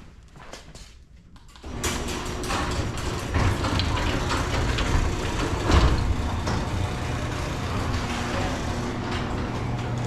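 A machine starts suddenly about two seconds in and runs steadily with a low hum, with scattered knocks and clatter over it.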